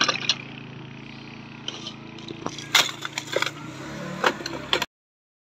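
Tools and small metal tins clinking and knocking against each other and the wooden box as they are packed away. The knocks are irregular, the loudest about three seconds in, over a steady low hum, and the sound cuts off suddenly near the end.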